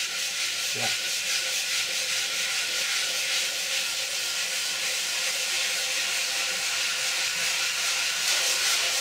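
Hand sanding block with sandpaper rubbed back and forth over a wooden box coated in oil-based paint, a steady scratchy hiss of continuous strokes. The lumpy two-coat base coat is being sanded level, down towards the bare wood.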